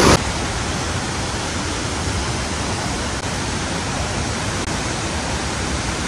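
Steady rush of a mountain stream cascading over boulders, a continuous even hiss of white water.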